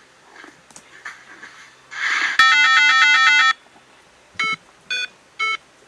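A short hiss-like burst, then a loud electronic warbling tone that flips rapidly between pitches for about a second. After a pause, short electronic beeps follow at about two a second.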